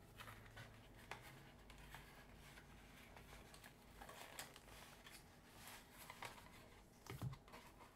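Faint handling noise of a clear plastic blister pack on a cardboard backing, with light crinkles and small taps as it is turned over in the hands, over near silence. A brief low sound comes about seven seconds in.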